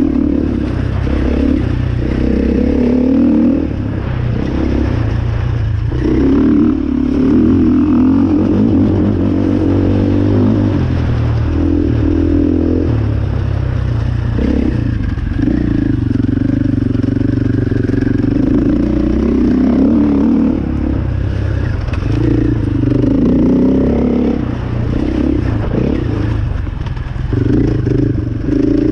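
Enduro dirt bike's engine, ridden along a rough dirt trail, revving up and falling back every few seconds as the throttle opens and closes.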